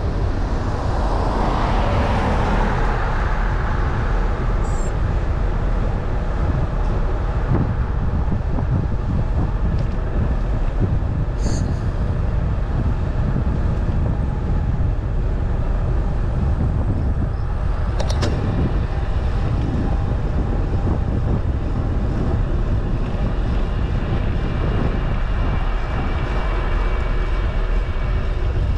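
Steady road and wind noise from a moving vehicle, heavy at the low end, swelling briefly in the first few seconds. Two short sharp ticks come about 11 and 18 seconds in.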